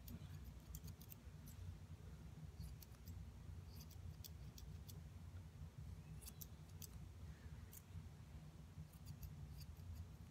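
Grooming scissors snipping through a poodle's leg hair: faint, sharp snips that come irregularly in small clusters, over a steady low hum.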